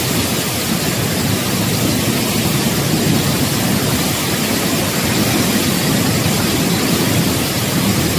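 Typhoon wind and heavy rain making a steady, loud rush with no let-up.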